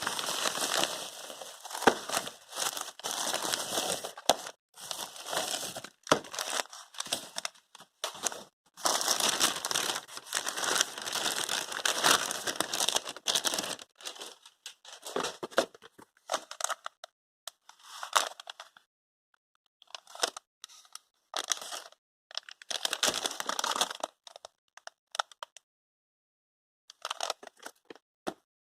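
Packaging being handled and unwrapped, crinkling and rustling in irregular bursts with short pauses between them.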